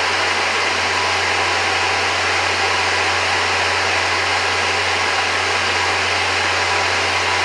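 Air Venturi 220-volt high-pressure electric air compressor running steadily while filling an air tank: a constant low hum under an even, loud rushing noise.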